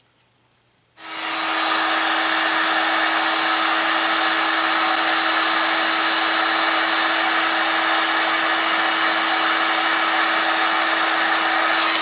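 Heat gun switched on, blowing steadily with a constant hum, starting about a second in and shutting off at the end, then spinning down.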